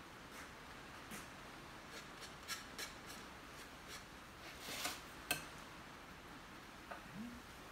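Quiet scraping and light ticks of a paintbrush working paint on a palette and canvas, with a longer scrape a little before five seconds and a sharp click just after it.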